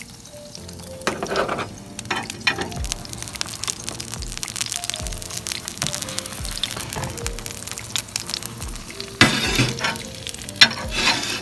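Beef burger patties sizzling and frying in a cast-iron sizzler pan, a steady hiss that swells louder about a second in and again near the end. Soft background music plays underneath.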